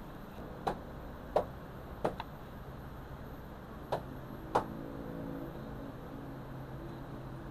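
Kitchen knife cutting boiled beef liver on a wooden cutting board: about six sharp taps of the blade on the board in the first five seconds. A steady low hum runs underneath.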